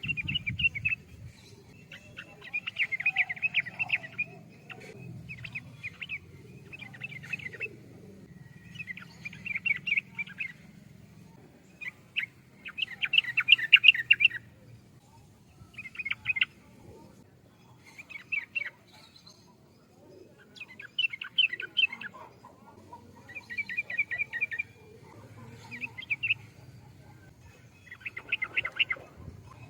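Yellow-vented bulbul (trucukan) singing: short chattering phrases repeated every second or two, with brief pauses between them.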